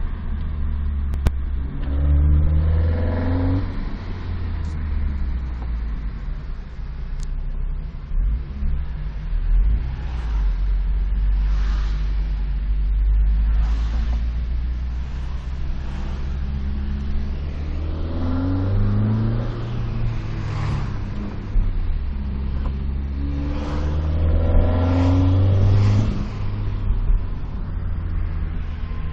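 Toyota 2ZZ-GE 1.8-litre four-cylinder engine running, its pitch rising under acceleration three times: about two seconds in, midway through and near the end. This is the unexplained noise the owner hears only around 2500 rpm under heavy throttle.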